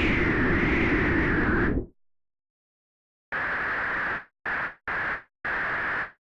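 Synthesized storm wind from the u-he TyrellN6 software synth: filtered noise with a wavering whistle near the top, cutting off abruptly a little under two seconds in. After a short silence come four shorter gusts of the same noise, each starting and stopping sharply.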